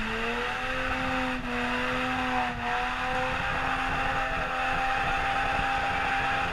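Nissan off-road truck's engine at full throttle under heavy load climbing a rock wall: the revs rise over about the first second, then hold high and steady with small dips.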